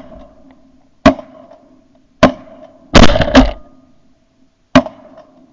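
A volley of shotgun shots from hunters firing at incoming ducks: about five blasts at uneven intervals, two of them close together near the middle, each followed by a short echo.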